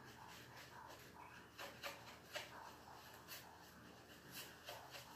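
Near silence, with a few faint taps and scrapes of a paintbrush stirring paint on a plate.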